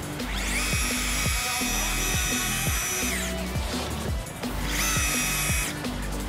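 Shimano electric jigging reel's motor whining as it winds in a hooked fish: one run of about two and a half seconds that rises in pitch as it starts and drops as it stops, then a second short run near the end. Background music plays underneath.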